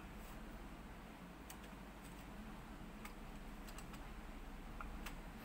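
Marker pen drawing on a whiteboard: faint, scattered ticks and taps of the tip on the board, with a brief squeak near the end.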